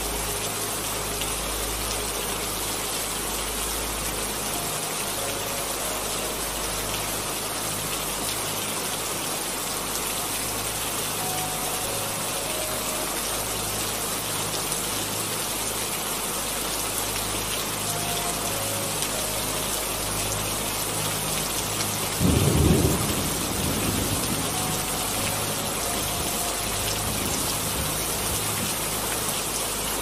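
Steady rainforest rain falling, an even hiss throughout, with a low rumble of thunder about three-quarters of the way through.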